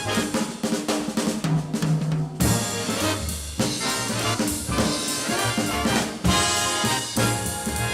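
Jazz recording: a brass section of trumpets and trombones plays held chords over a drum kit.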